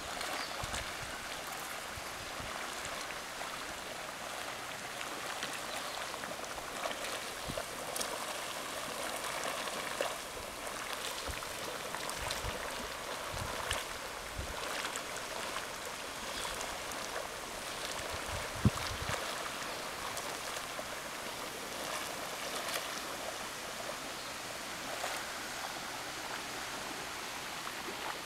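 Scalding hot-spring pool bubbling steadily, a continuous watery wash with many small pops. A single sharp low thump about two-thirds of the way through.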